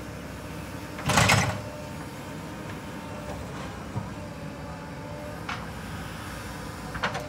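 JCB 3DX backhoe loader's diesel engine running steadily while its bucket tips soil and stones into a steel tractor trolley: a loud half-second rush of falling dirt about a second in, then a few short knocks.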